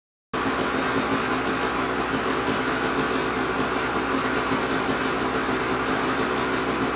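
Polaris 850 two-stroke twin snowmobile engine running steadily at idle, warmed up. The sound cuts in abruptly just after the start.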